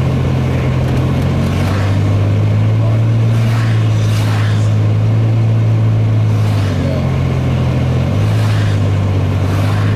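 Steady low drone of a vehicle's engine and tyres heard from inside the cabin while driving a wet, snowy highway. The hum shifts in pitch a few times, and soft swishes come and go over it.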